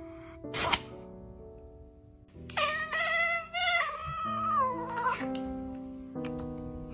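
A cat sneezes once, a short sharp burst, then gives one long wavering meow lasting about two and a half seconds that drops in pitch at the end. Soft background music plays underneath.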